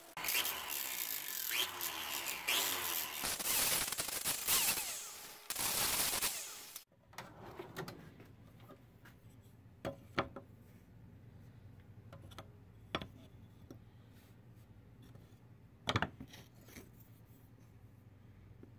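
Hand-sanding a steel knife blade: quick back-and-forth strokes of abrasive rubbing on steel for about seven seconds, then they stop abruptly. After that there is a low steady hum with a few light clicks and taps.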